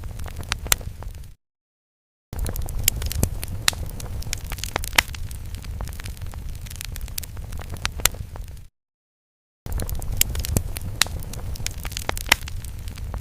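Fire sound effect: a steady low rumble with frequent sharp crackles and pops. It cuts out to dead silence twice for about a second, once shortly after the start and again about two thirds of the way through.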